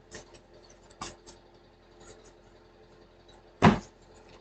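Cards being handled on a table: a few light clicks, then one sharp, louder knock about three and a half seconds in.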